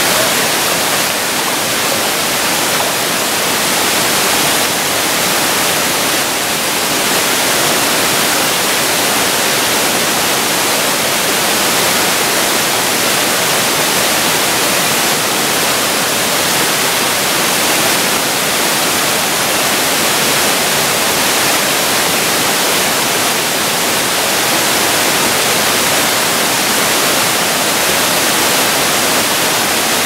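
Small waterfall cascading over low, wide rock tiers into a pool: a steady, loud rush of falling water that does not change.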